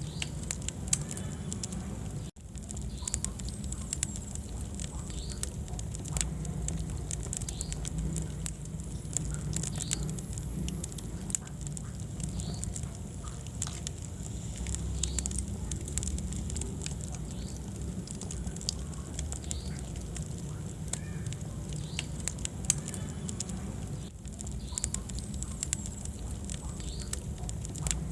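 Wood fire in a fireplace crackling, with frequent sharp irregular pops and snaps over a low steady rumble of the flames. The sound dips out briefly twice, about two seconds in and near the end.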